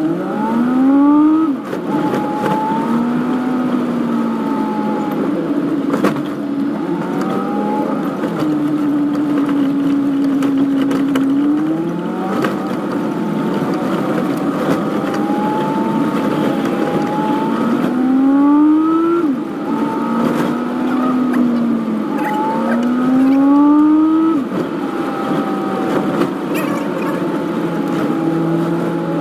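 Daihatsu Feroza's engine, sped up four times, climbing in pitch through repeated pulls through the gears, each ending in a sudden drop at the shift, with steady cruising stretches between, over constant road noise.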